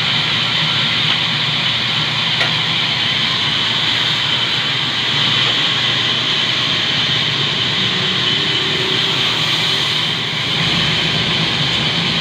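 Large band saw running steadily with a log being fed through it for cutting.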